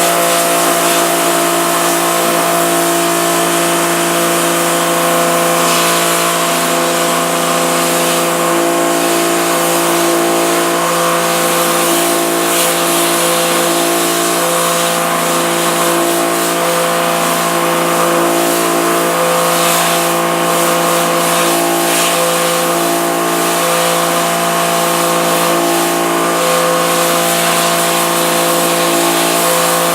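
Pressure washer running steadily: the motor and pump hum under the hiss of the water jet as it blasts emulsion out of a screen-printing screen.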